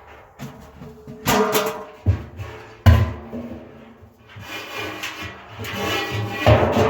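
Cable and wood washer knocking and scraping inside an empty steel barrel. Several sharp clanks leave the drum ringing with a hollow tone.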